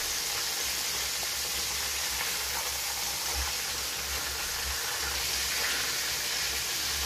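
Chicken pieces deep-frying in hot oil in a pan: a steady sizzle.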